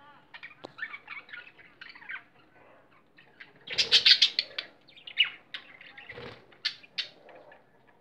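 Budgerigars chattering with many short, quick chirps and warbles, with a louder burst of calls about four seconds in.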